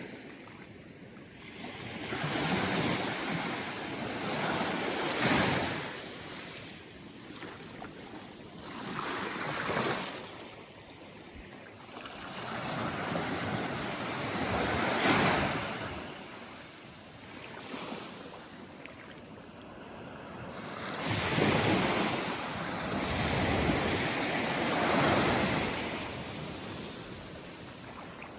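Small Caribbean Sea waves washing in at the shoreline, a rush of surf that swells and fades every few seconds.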